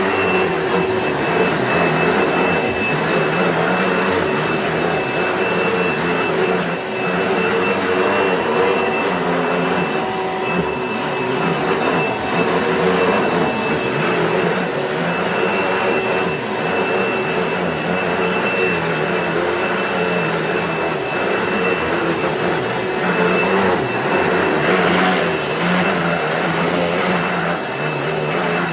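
Vacuum cleaner running steadily with a high-pitched whine while it is worked over a rug.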